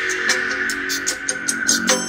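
Recorded music playing from a memory card through a 12 V MP3/Bluetooth player module and class D amplifier board into two 3-inch, 10-watt speakers, with held notes.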